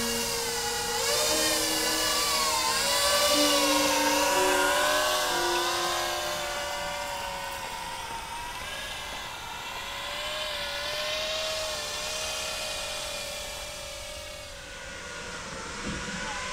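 Camera drone's propellers whining steadily, the pitch wavering up and down as it flies. A few held music notes fade out in the first few seconds.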